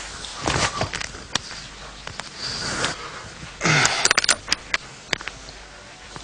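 Bedding and clothes being rummaged through and handled, fabric rustling with scattered light knocks and clicks, and a louder rustle a little over halfway through.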